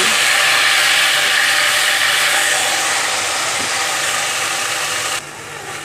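Loud sizzling as wet mashed boiled pumpkin hits hot oil tempered with bay leaf, onion and garlic in a frying pan. The sizzle drops off sharply near the end.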